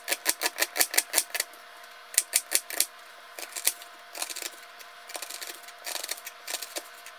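Chef's knife chopping a red onion on a bamboo cutting board: quick runs of sharp knocks as the blade hits the board, several a second, strongest in the first three seconds and lighter after.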